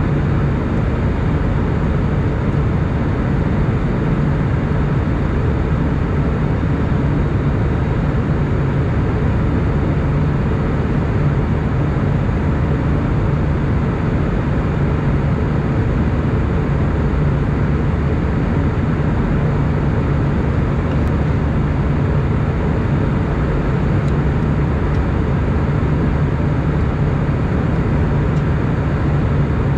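Steady cabin noise of an Airbus A320 in flight, heard from a window seat: an even drone of the engines and rushing air, strongest low down, with no change in level.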